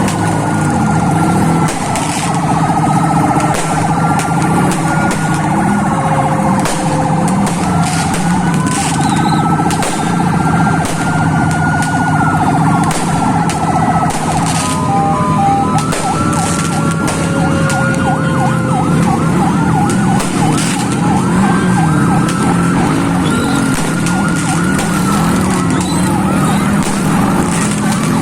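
Several ambulance sirens sounding at once, their wails rising and falling and overlapping. About halfway through, one switches to a fast warbling yelp. Scattered sharp pops run underneath.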